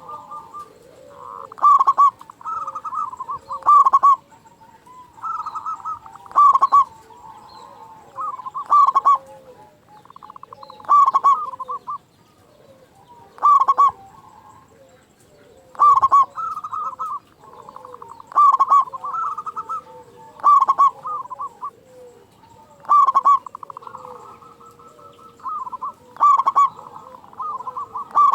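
Zebra dove (perkutut) cooing, in frequent, strong song. A loud phrase of rapid rolling coos comes about every two seconds, with softer cooing between them.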